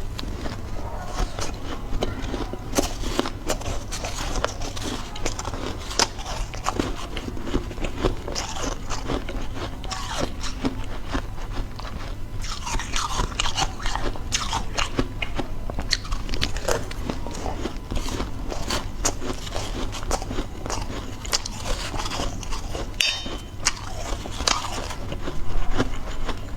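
Close-miked biting and chewing of powdery white ice, a dense run of irregular crisp crunches throughout, over a steady low hum.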